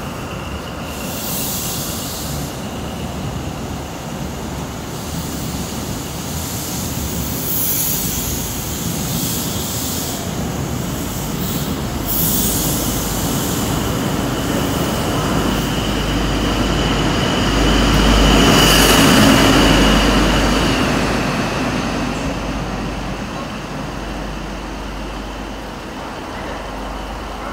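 High Speed Train pulling away: coaches rolling past with a steady high whine over the rumble, the rear Class 43 diesel power car passing loudest about two-thirds of the way through, then the sound fading as the train draws off.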